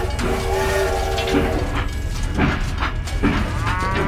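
Toy steam locomotive's whistle sounding a held chord for about a second and a half, over a steady running rumble with rhythmic rail clacks. A cow's moo begins near the end.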